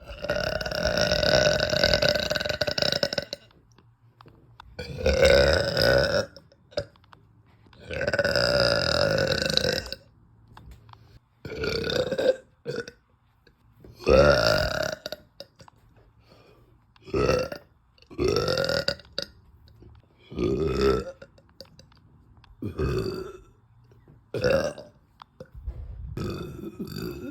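A woman belching over and over, long loud burps from gas built up by drinking carbonated soda. About eleven separate burps, the first few each lasting two to three seconds and the later ones shorter.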